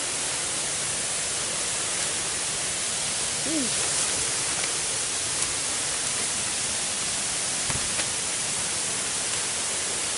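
Steady rushing hiss of a jungle waterfall close by, even and unbroken. A short voice-like sound falls in pitch about three and a half seconds in, and there are a couple of faint knocks near the end.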